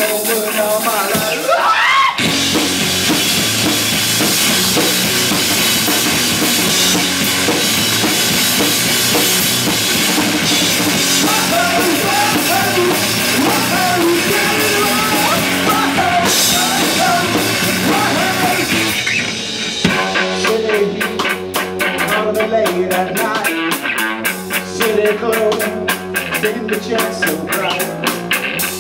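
Live rock band playing loud: drum kit, electric guitar and bass. About twenty seconds in, the dense wash of sound thins out and the drums play a tight beat of sharp, evenly spaced strokes.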